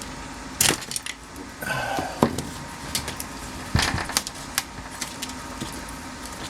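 Screwdriver clicking, knocking and scraping against metal inside a GM tilt/telescopic steering column as the turn signal switch wiring is pushed down through it. Several sharp clicks and knocks, with a short scrape about one and a half seconds in.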